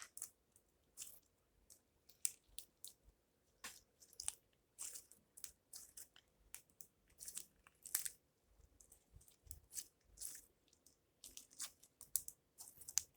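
Hand-worked slime mixed with beads, giving faint, irregular crackles and clicks as it is squeezed and stretched.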